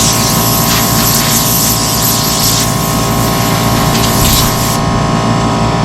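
A motor running steadily, with a loud hissing grind over it that cuts off near the end while the motor keeps running.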